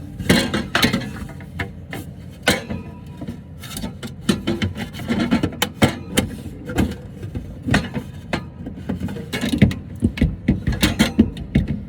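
Irregular knocks, clicks and clatter of things being handled and moved about, with a low rumble underneath.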